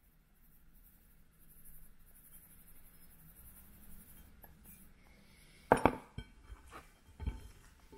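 Dry spice rub poured from a metal bowl onto raw chicken wings in a glass bowl, faint at first. Just under six seconds in there is a sharp knock on the glass bowl, then several softer knocks and clinks as hands toss the wings in the rub.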